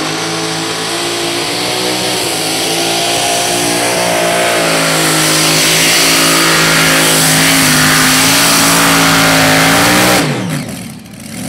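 Supercharged engine of a two-wheel-drive pulling tractor at full throttle under load as it drags the pulling sled. The note climbs a little early on and then holds steady and loud. About ten seconds in, the pitch falls away sharply as the engine is shut off at the end of the pull.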